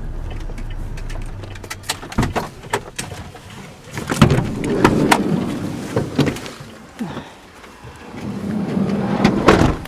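Camera handling noise: knocks, clicks and rubbing on the microphone as the camcorder is moved about and covered, with two stretches of loud rumbling about four and nine seconds in. A low steady car-interior rumble is heard at the start.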